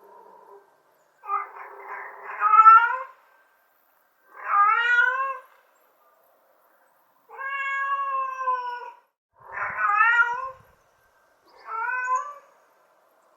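Domestic cat meowing repeatedly: a faint short call, then five meows one to two seconds apart. The first of the five is the loudest, and the middle one is longer and drawn out at an even pitch.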